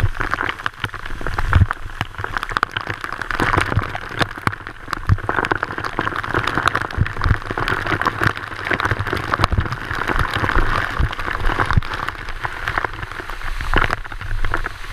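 Water of a waterfall pouring and splashing right onto the camera: a loud, steady spattering hiss with many sharp drop hits and occasional low thumps.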